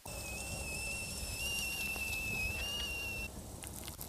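Whistling kettle at the boil: one steady, high whistle with a slight waver that stops about three seconds in.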